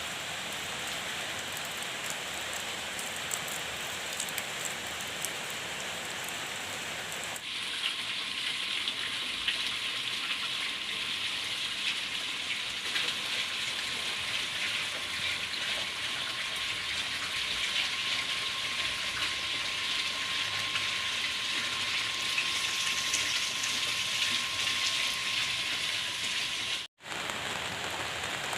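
Steady rain falling, a dense patter of drops. The sound changes abruptly about seven seconds in and drops out for an instant near the end.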